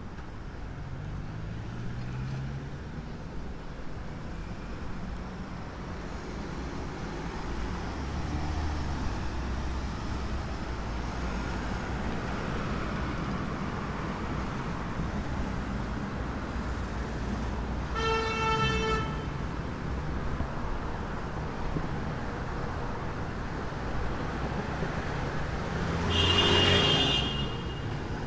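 Street traffic with cars driving past close by, their engines rising and falling. There is a short car-horn toot about two-thirds of the way in, and a louder, brief burst of sound near the end.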